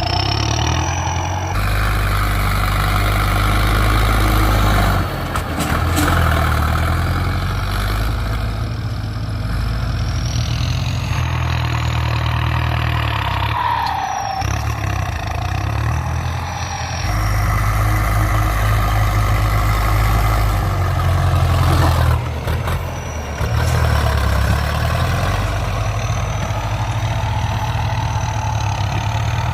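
Ford 6610 tractor's four-cylinder diesel engine running loud while working a field, its pitch and loudness shifting every few seconds as the load changes.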